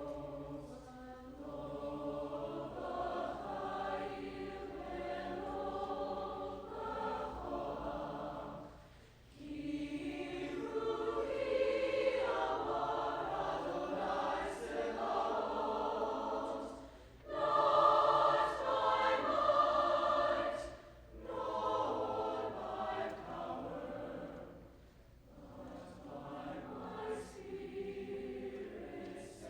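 A high school choir singing in phrases, with short breaks between them; it swells to its loudest a little past the middle.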